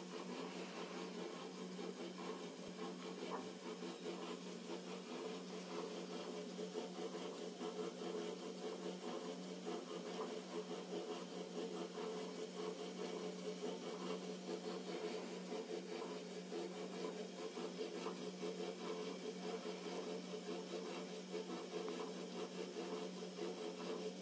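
Emco Compact 8 lathe spindle running: a steady hum with a fast, irregular rattle over it and a thin high whine. This is the spindle noise the owner is troubleshooting.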